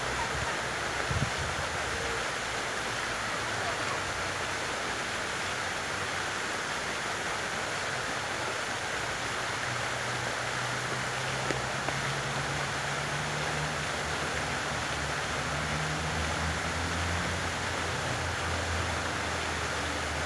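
Fountain water jets splashing steadily into a pool, an even rushing hiss. A low hum comes in about halfway through and grows toward the end.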